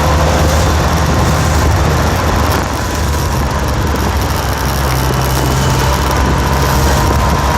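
An engine running steadily, a constant low hum under a wash of noise.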